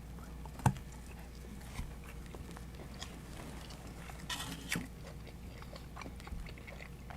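A person biting and chewing pizza close to the microphone: sparse soft mouth sounds and small clicks, with a sharp click under a second in and a denser crunchy stretch around four and a half seconds.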